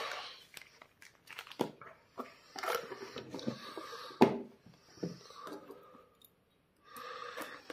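Plastic-wrapped card-sleeve packs and cardboard card boxes being handled: irregular crinkling and rustling with scattered sharp taps, the loudest about four seconds in.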